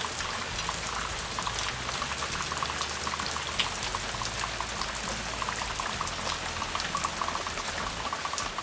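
Rain falling: a steady hiss dotted with many small drop ticks.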